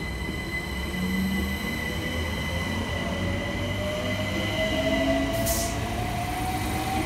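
London Overground Class 378 Electrostar electric train accelerating, its traction motor whine rising steadily in pitch over a steady high-pitched whine and low rumble. A short hiss comes about five and a half seconds in.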